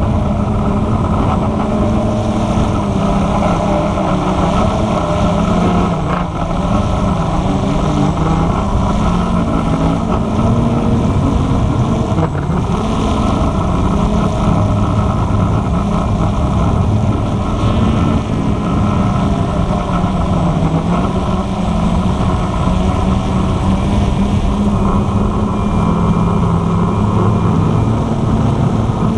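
Walkera QR X350 Pro quadcopter's electric motors and propellers buzzing steadily in flight, the pitch wavering up and down as the motors change speed.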